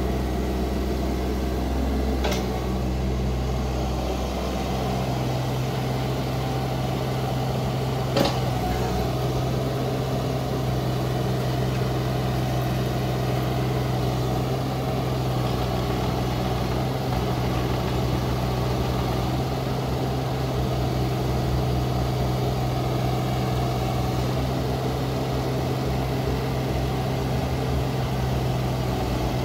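JCB 16C-1 mini excavator's diesel engine running steadily while the machine slews and moves its arm; its note grows stronger about four seconds in. Two short sharp clunks, about two and eight seconds in, the second louder.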